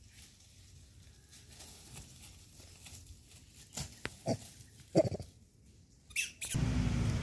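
Monkeys giving a few short calls over faint rustling in dry leaves, the loudest about five seconds in. Near the end a louder steady noise with a low hum starts abruptly.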